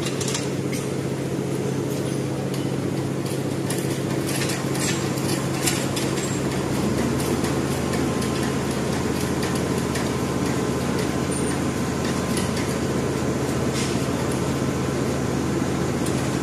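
A steady low machine hum, with scattered short metallic clicks and clinks, most of them in the first third.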